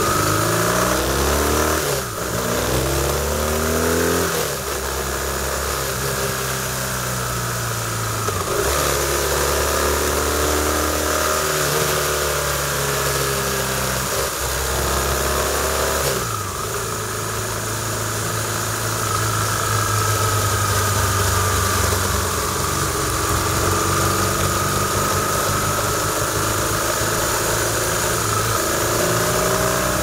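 BMW R1200RT boxer-twin motorcycle engine under way, its note climbing and then dropping several times as the rider works the throttle on and off through the curves, over steady wind noise.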